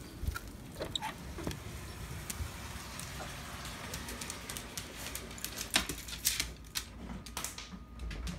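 A dog's claws clicking irregularly on tile and wooden floors as she walks, with a thump at the very end.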